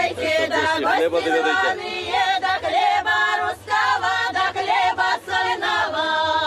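A women's folk choir singing together, several voices moving through a song line by line.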